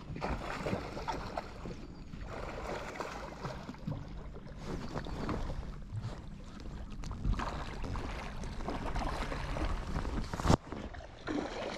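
Wind and water noise around a small boat, uneven and rough, with scattered small knocks and one sharp knock about ten and a half seconds in.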